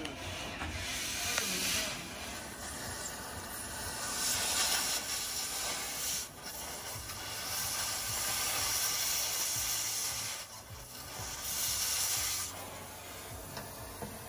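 Loud hissing that comes and goes in several stretches, the longest about four seconds, with short drops between them.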